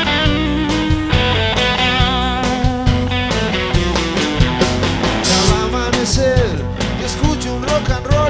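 Live rock band playing an instrumental passage: electric and acoustic guitars over a drum kit with a steady beat, and a lead line bending notes up and down in the second half.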